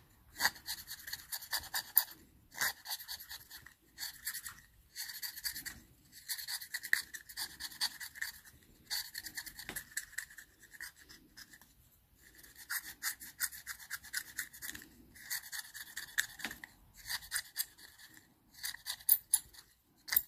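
Stanley knife blade held flat and scraped across a flat glass gauge lens to clean it. The blade makes rapid scratching strokes in spells of one to two seconds, with short pauses between them.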